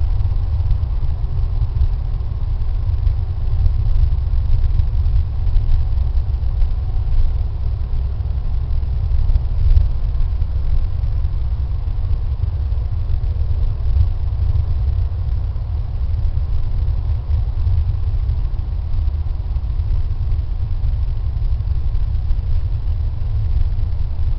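A steady low rumble with no clear tone, unchanging throughout.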